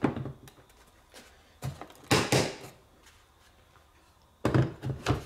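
Knocks and clicks of a Humminbird fish finder being fitted onto its mount on the boat. There are a few scattered knocks, a louder pair a little over two seconds in, and a quick cluster of knocks near the end.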